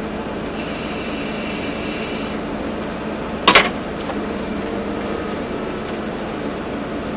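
Volvo EC240B excavator's diesel engine running steadily with a faint high hydraulic whine. A sharp, loud metallic clank about halfway through, twice in quick succession.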